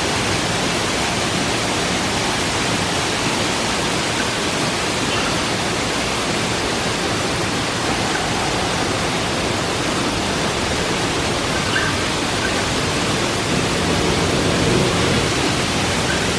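Waterfall: a loud, steady, unbroken rush of falling water.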